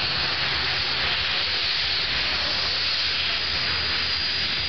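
Alpha Jet's twin turbofan engines running as the jet rolls along the runway: a steady, loud jet hiss with a thin high whine.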